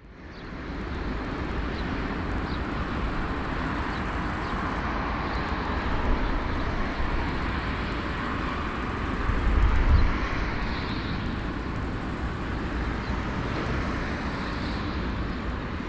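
Airbus A340-313's four CFM56 jet engines running at low taxi power: a steady jet noise that fades in and holds, with a louder low rumble swelling briefly about ten seconds in.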